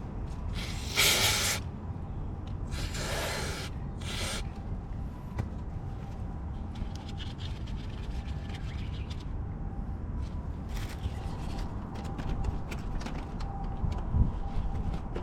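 Three short rubbing sounds about a second, three seconds and four seconds in, then scattered light ticks, over a steady low background rumble.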